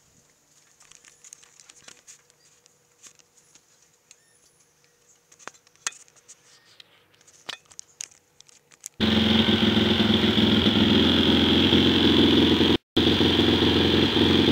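Faint clicks and rustles for about nine seconds, then, suddenly, the Suzuki DR-Z110 pit bike's 110 cc single-cylinder four-stroke engine running loud and steady, with a brief dropout about a second later.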